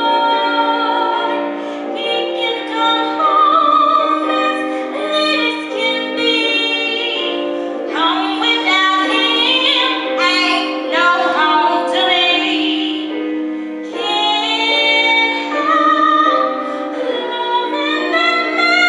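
A woman singing a song with musical accompaniment, holding long notes.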